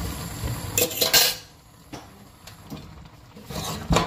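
Dishes and cutlery clinking and clattering as they are handled, loudest in a quick run of clatters about a second in, with a few light clicks after and another clatter near the end.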